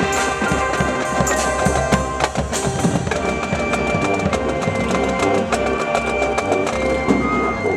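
High school marching band playing, with rapid percussion hits to the fore under held wind notes.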